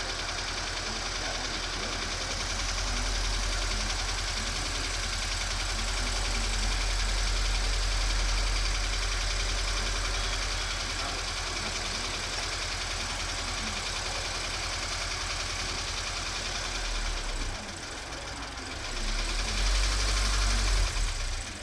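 Subaru BRZ's flat-four boxer engine running at idle, making the abnormal engine noise its owner is recording. The note stays steady and even, then dips about three-quarters of the way through and grows louder near the end.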